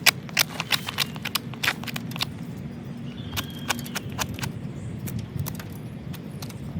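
Irregular light clicks and taps of wood being handled and worked, a few a second, over a steady low rumble.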